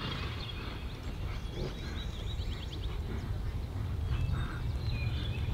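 Wild birds calling around the arena: scattered high chirps and a quick trill about two seconds in, over a steady low outdoor rumble that swells slightly near the end.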